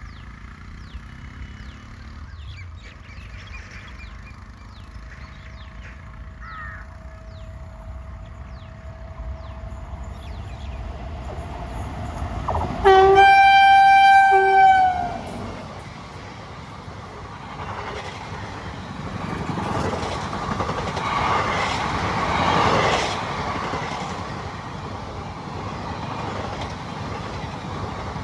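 Indian Railways WAP-7 electric locomotive sounding its horn in one loud blast of about two seconds, the note sagging at the end: the 'donkey honk'. It comes as the express approaches, and then the train passes with wheels rumbling on the rails.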